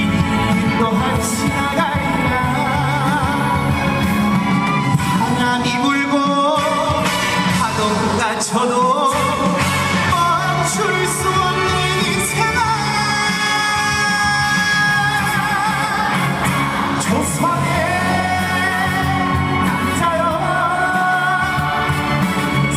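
Live music: a singer performing a trot song over backing music, the voice wavering with vibrato.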